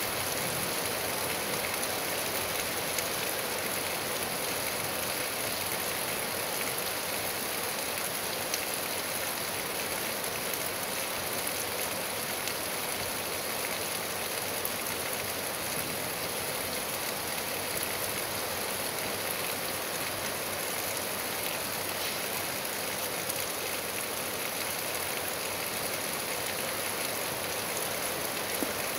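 Steady rain falling, heard as an even hiss that does not change, with a few faint ticks now and then.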